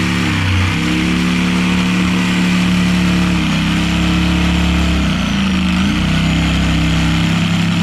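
Power saw cutting through a bass boat's fiberglass floor at full throttle, its motor running loud and steady with its pitch dipping briefly several times as the blade bogs under load.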